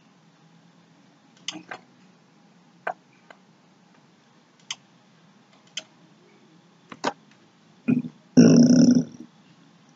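Computer mouse clicks, single and scattered, while a blog and then the theme editor are selected. About eight seconds in comes a short, loud throaty sound from a person, lasting about a second.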